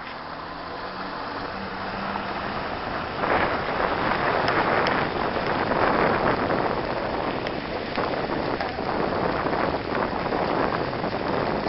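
A car driving off, with tyre and road noise that swells about three seconds in and stays loud and crackly, as heard from inside the car.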